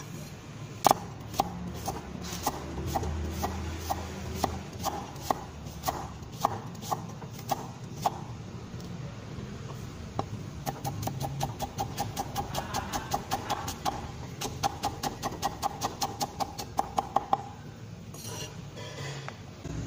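Cleaver chopping vegetables on a thick wooden block: spaced chops about two a second, then, from about halfway, a fast steady run of about four chops a second while cutting carrot into thin strips.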